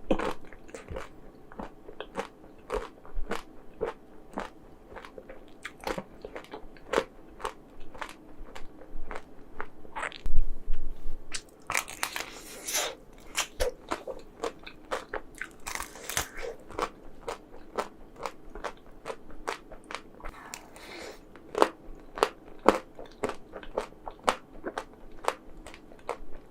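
Close-miked biting and chewing of chocolate-coated ice cream: many small crisp crunches of the chocolate shell, with a louder knock about ten seconds in and a couple of brief hissing noises midway.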